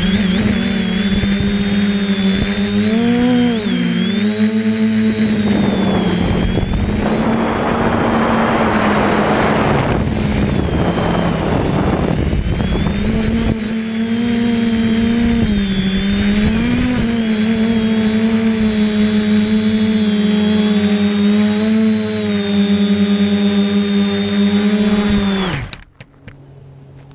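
Drone's electric motors and propellers humming in flight with a high whine, the pitch wavering as it manoeuvres, and a rushing noise for several seconds in the middle. Near the end the motors wind down and stop as the drone lands.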